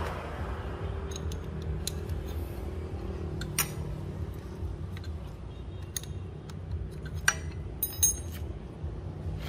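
Scattered metal clicks and clinks from a threaded-rod piston-pin puller and its steel spacer sleeve being unscrewed and handled by hand, with a short metallic ring near the end, over a low steady background hum.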